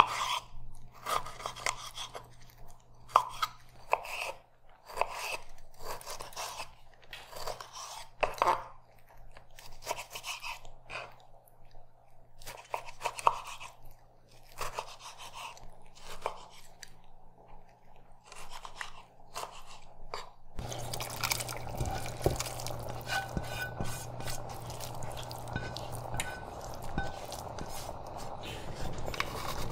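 Kitchen food-preparation sounds: irregular crunchy cuts and scrapes for about twenty seconds, then a sudden change to a steady hiss with a low hum and a few faint ticks.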